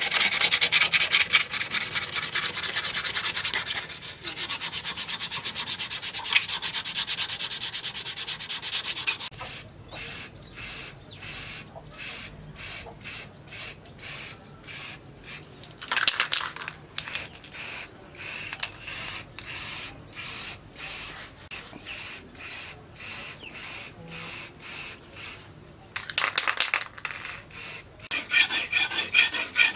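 Hand abrading of a workpiece, rubbing back and forth with an abrasive. Fast, closely spaced strokes for about the first nine seconds, then slower separate strokes about two a second, then fast strokes again near the end.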